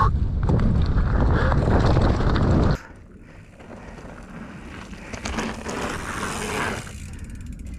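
Mountain bike rolling fast over dirt, tyres and frame rattling with wind on the microphone. About three seconds in the rattle stops abruptly, leaving a much fainter wind hiss.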